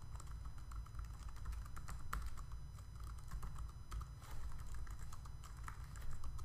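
Typing on a computer keyboard: quick, irregular key clicks as text is entered, over a low steady hum.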